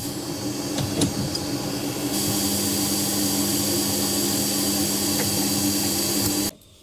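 An electric motor, such as a power tool's, running at a steady speed with an even hum and hiss, then switched off suddenly near the end.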